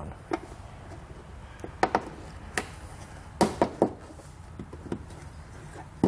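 Plastic pushpin fasteners being pressed into a taillight assembly and their centers pushed down to lock: a series of short, sharp clicks and taps, some in quick pairs.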